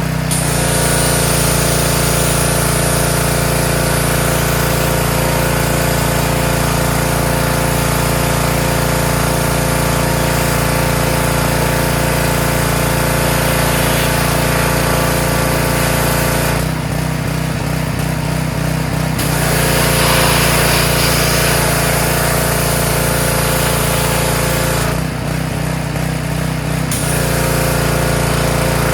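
Small gasoline engine of a pressure washer running steadily, with a high hiss over it that cuts out twice for about two seconds each.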